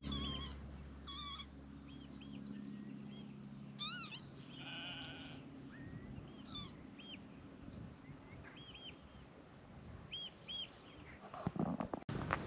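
Open-country ambience: birds calling with short repeated chirps and a few trills, and a single bleat about five seconds in, over a faint low hum that fades after the first few seconds.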